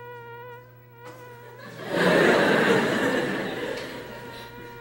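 Hydrogen flame burning at the hole atop a copper can, singing a steady tone with overtones that wavers slightly, as the hydrogen–air mixture inside changes with air drawn in at the bottom. About two seconds in, an audience bursts into loud laughter that slowly dies down.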